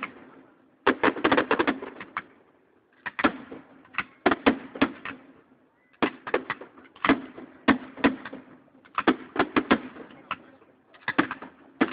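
Fireworks display: shells bursting in runs of quick sharp cracks, a cluster every one to two seconds with short lulls between, heard through a phone's microphone.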